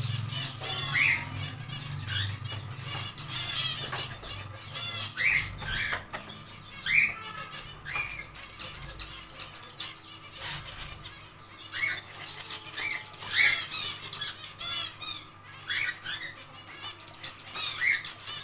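Zebra finches calling in a colony aviary: a busy, irregular run of short, sharp calls from several birds, a few of them louder than the rest.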